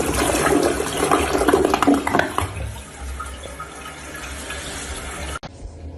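Water running, louder for the first two and a half seconds, then steadier, and cutting off abruptly about five and a half seconds in.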